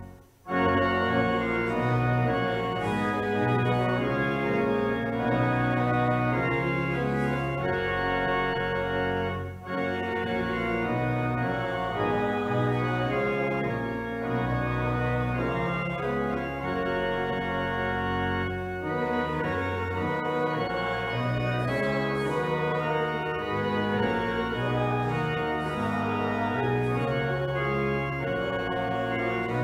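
Church organ playing slow, sustained chords over a moving bass line. It breaks off briefly just after the start and pauses shortly again about ten seconds in.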